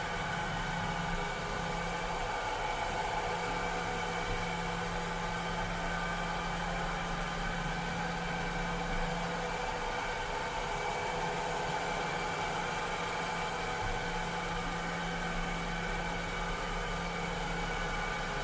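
Cleaning robot's motor running with a steady whir: several constant tones over an even hiss.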